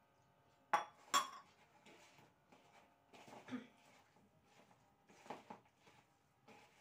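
A steel tumbler clinks twice about a second in, with a short metallic ring. Then come soft, irregular wet sounds of a hand mixing thick gram-flour pakora batter in a bowl.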